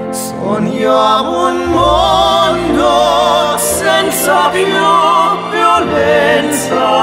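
Music: a ballad with a voice singing with strong vibrato over steady instrumental accompaniment.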